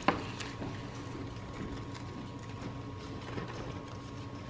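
Hands handling a kraft paper gift bag and hanging small ornaments on the evergreen inside it: a sharp click right at the start, then faint rustles and light taps over a steady background hum.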